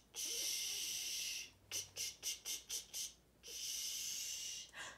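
A woman imitating a lawn sprinkler with her mouth: a long steady "shhh" hiss, then a quick "tch-tch-tch" at about four a second, then another long hiss.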